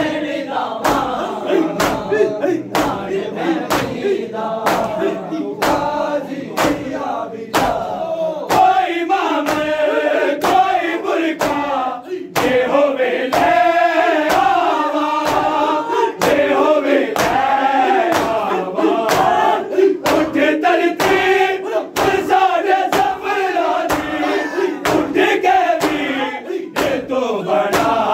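A crowd of men chanting a Muharram mourning lament in unison, with open hands slapping bare chests in a steady beat of about two strikes a second: matam.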